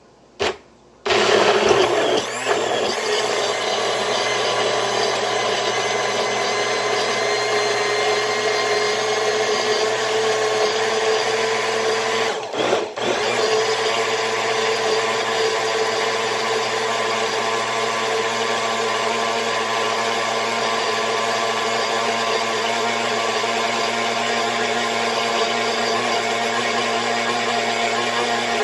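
Hamilton Beach personal blender's motor blending chunks of fruit and green tea into a smoothie. A short pulse, then a continuous steady whirring hum that is rougher and loudest for the first second or so as the blades chop through the fruit pieces, a brief dip about twelve seconds in, and a cut-off at the very end.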